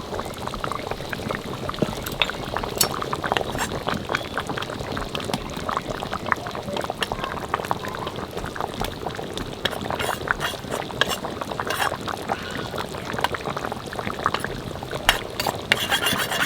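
Country-chicken curry bubbling in a pot, a dense irregular crackle of bubbles, with sharp clinks of a utensil against the pot here and there and a cluster of them near the end.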